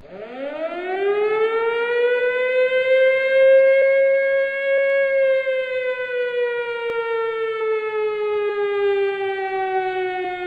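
A siren wailing: its tone starts low and winds up steeply for about two seconds, is loudest around four to five seconds in, then slowly winds down for the rest.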